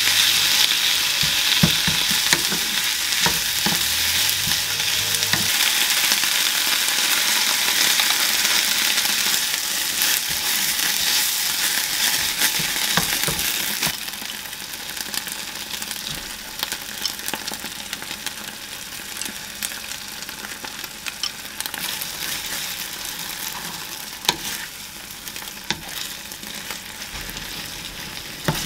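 Sliced onion and bacon sizzling in olive oil in a frying pan, stirred with a wooden spoon that clicks and scrapes against the pan. About halfway through the sizzle drops to a quieter frying, with tomato sauce and noodles being stirred in the pan.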